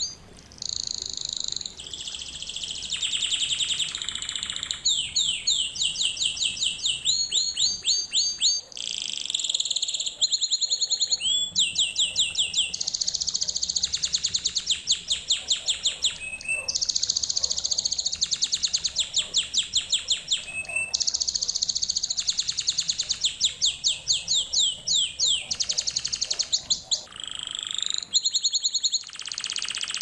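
Canary singing a continuous song of rapid trills: runs of fast repeated high notes, many of them sweeping up or down in pitch, with the pattern changing every second or two and only a few brief breaks.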